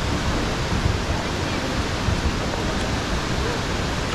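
Steady rush of flowing water, an even roar with no rhythm or breaks.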